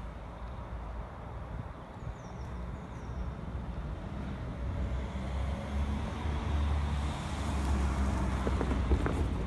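Low, steady motor-vehicle engine rumble that grows louder over the last few seconds.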